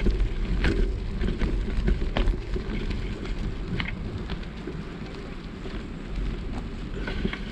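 Wind noise on a moving camera's microphone, a steady low buffeting, with scattered crunching clicks of loose gravel as it travels along a gravel road.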